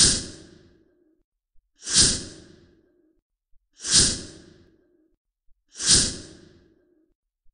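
A breathy exhale, like a sharp sigh, repeated four times at an even two-second spacing, each starting abruptly and fading out over about a second, with a faint click just before each one.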